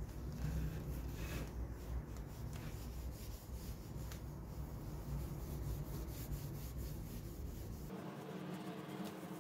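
Cloth wiping and rubbing oil into a sanded wooden lamp base: faint, irregular scrubbing strokes on the wood. A low hum underneath stops abruptly about eight seconds in.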